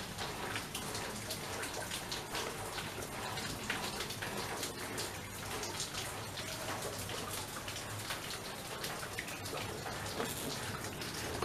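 Steady rain pattering, a dense crackle of many small drops.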